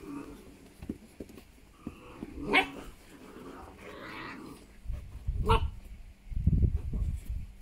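Presa Canario puppy playing, giving two short barks about three seconds apart with softer vocal sounds between them. A low rumble runs through the second half.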